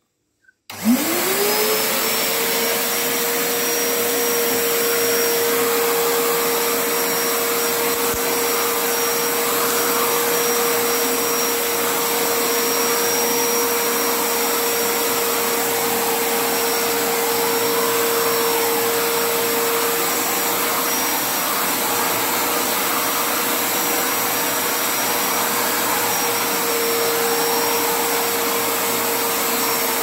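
Prestige Typhoon 05 wet-and-dry vacuum cleaner with a 1200 W motor, switched on just under a second in. The motor spins up with a quickly rising whine and then runs steadily: a loud, even rush of air over a constant high-pitched whine.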